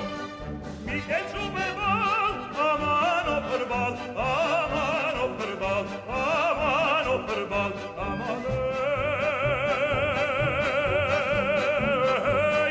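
Operatic singing with orchestral accompaniment. From about nine seconds in, one long note is held with a wide vibrato almost to the end.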